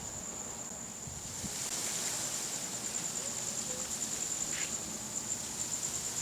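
Crickets trilling steadily at a high pitch, over a soft rush of wind that picks up about a second and a half in.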